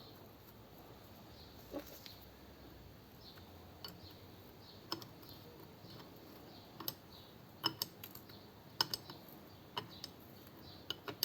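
Light clicks and clinks of a starter Bendix drive's small metal parts being handled and fitted together: about a dozen irregular taps, closer together and louder in the second half.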